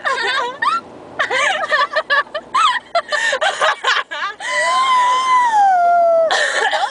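A young woman's voice, playful chattering and laughter, then a long wailing note of about two seconds that slides down in pitch near the end.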